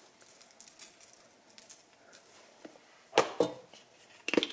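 A faint sprinkle of ground pepper shaken from a tin over raw chicken, then two sharp knocks a little after three seconds as the tin is set down on the granite countertop, and another knock near the end.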